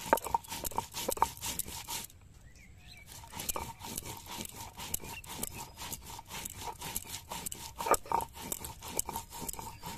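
Stone roller rubbed quickly back and forth over a grooved grinding stone (sil-nora), crushing cumin seeds into paste: a run of rasping, scraping strokes that stops briefly about two seconds in, then starts again.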